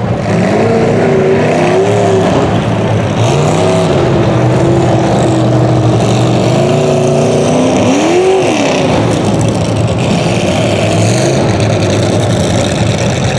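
Big lifted mud truck's engine revving up and down several times as it drives through mud on oversized tractor tires.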